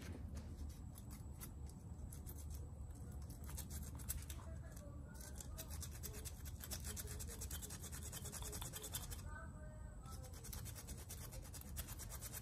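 Faint rapid clicking and scratching from hand work on a car starter motor's parts.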